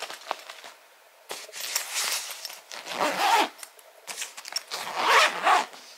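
Zipper of a child's fabric suitcase being pulled closed, rasping in two long strokes after a short quiet start.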